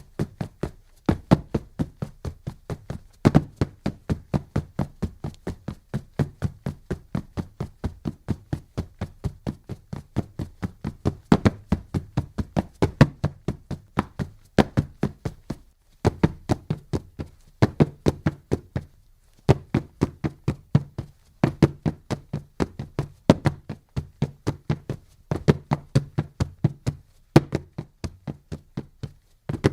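Rapid footfalls of a sprinter running the hurdles on a track: sharp knocks several times a second, some landings louder than others, in long runs broken by a few brief pauses.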